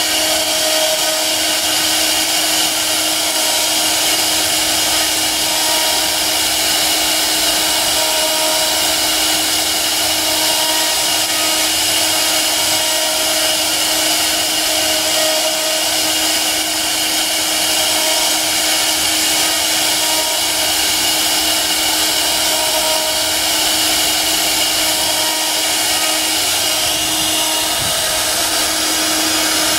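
Multi-spindle CNC wood router running, its spindle milling a relief carving into a fibreboard door panel: a steady, even machine noise with a held tone over the hiss of the cut.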